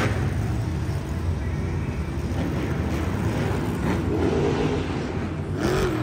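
Monster truck engines running as several trucks drive around the arena floor, a steady low rumble. A few seconds in, one engine's pitch rises and falls.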